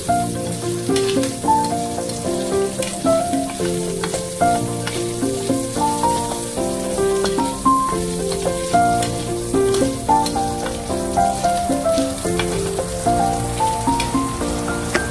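Instrumental background music with a stepping melody, over pork pieces sizzling in a frying pan and being stirred with a metal spatula, with small clicks and scrapes.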